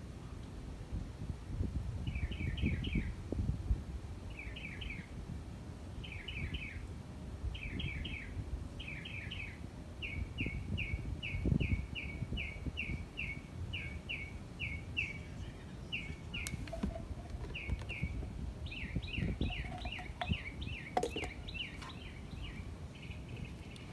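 A small bird chirping over and over, first in short clusters of a few notes, then in a quick, evenly spaced run from about ten seconds in, over a steady low outdoor rumble.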